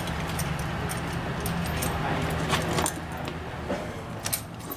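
Small metal parts and tools clinking and jangling as they are handled, over a steady low mechanical hum that eases off about halfway through.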